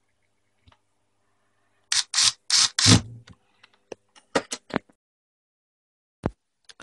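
Handling noise from an opened smartphone being reassembled: four quick scratchy bursts about two seconds in, then a quick run of light clicks and one more click near the end.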